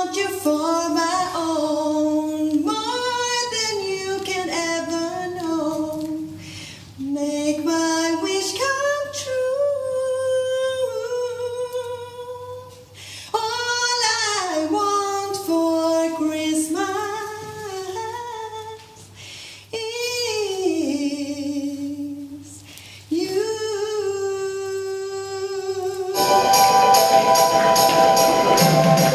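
A woman singing a Christmas song solo and unaccompanied, in phrases with short breaths between them. About 26 seconds in, loud backing music and more voices come in.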